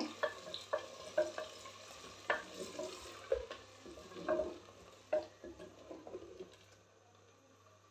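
Wooden spoon stirring chicken and tomato-garlic puree in a clay handi, with short scrapes of wood against the clay pot, one or two a second, over faint frying. The strokes thin out and stop near the end.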